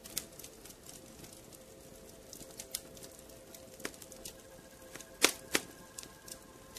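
Scattered sharp clicks and taps at an uneven pace over a faint steady hum, with two louder clicks a little past five seconds in.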